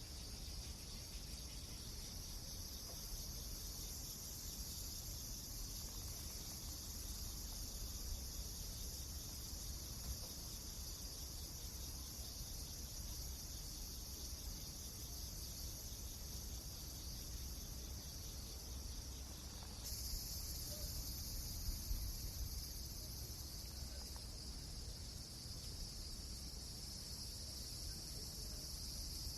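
Steady high-pitched chirring hiss over a low rumble, with a few faint pops; the high sound changes abruptly about two-thirds of the way through.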